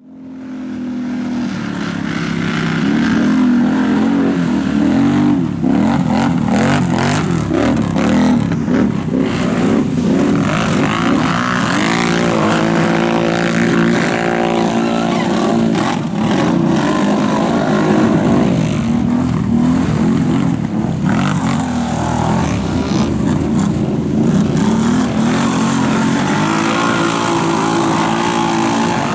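Several ATV (quad bike) engines revving hard together, their pitches rising and falling and crossing as the quads race through deep mud and water. The sound fades in over the first couple of seconds.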